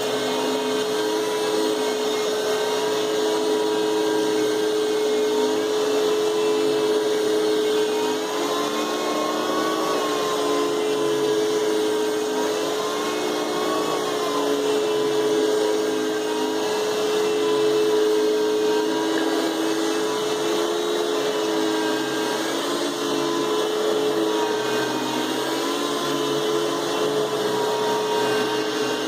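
Hoover Futura 4.0 peak horsepower canister vacuum cleaner running steadily at full power, with a constant motor whine over the rush of air.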